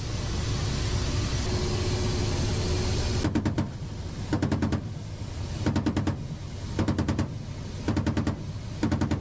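Helicopter cabin noise from engine and rotor, then, from about three seconds in, a helicopter-mounted gun firing six short bursts about a second apart, each a quick string of shots.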